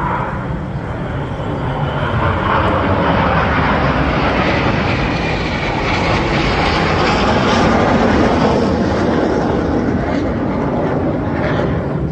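An aircraft flying past: a loud engine roar that builds over the first two seconds and stays strong.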